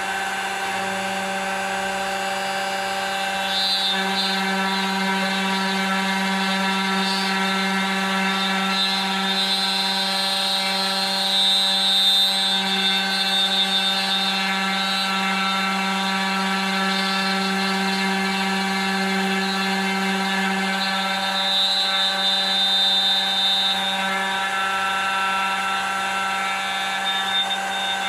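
Router spindle of a homemade manual copy router running steadily while its fine engraving bit cuts grooves into a wooden board: a steady motor hum, with a higher cutting hiss that swells at times as the bit bites.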